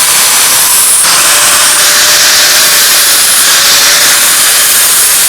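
Power grinder working the steel of a knife blade: a steady, loud grinding hiss with a faint motor hum underneath.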